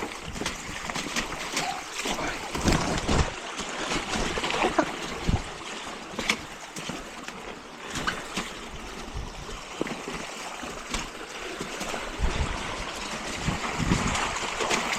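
Mountain bike riding through a flooded trail: tyres splashing through standing water, with spray and frequent knocks and rattles from the bike over rough ground, and scattered low thumps.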